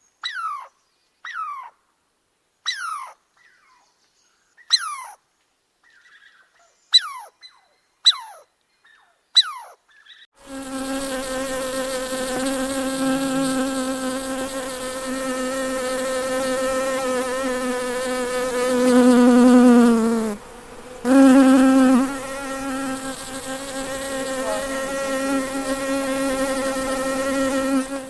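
A series of short, high chirps, each falling sharply in pitch, at irregular intervals. About ten seconds in, a flying insect starts a continuous buzzing drone that holds steady, with one brief break near the end.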